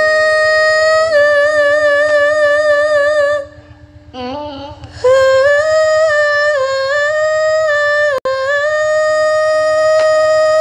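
A young female sinden singing a Javanese vocal line into a microphone, holding long notes with a wide vibrato, breaking off for about a second and a half in the middle before another long held note. Faint steady instrumental notes and a low hum sit underneath.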